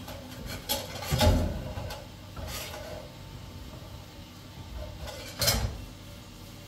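A few short scraping and knocking sounds, the loudest about a second in and again near the end, like something being rubbed or rasped and set down.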